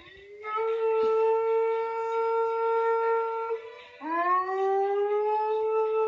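A dog howling: two long howls, each sliding up in pitch at the start and then held steady, the second beginning about four seconds in. It is heard played back through a laptop speaker.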